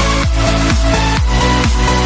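Electronic dance music with a steady four-on-the-floor beat, about two bass-heavy kicks a second, each with a falling pitch sweep, under sustained synth notes.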